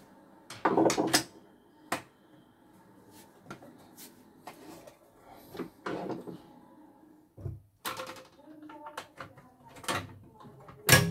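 Scattered knocks and clatter of a stripped-down embroidery machine and its parts being handled and shifted on a wooden workbench, loudest in a cluster about a second in.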